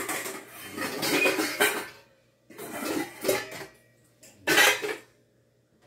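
Pots, pans and other kitchenware clattering and knocking together as someone rummages through a lower kitchen cabinet, in three bouts with short pauses between.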